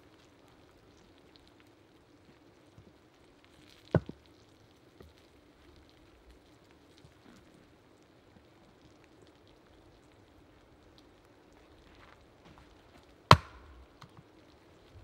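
Two sharp wooden knocks about nine seconds apart. The second and louder one is a hatchet chopping into the top end of a log stood upright on a stump chopping block.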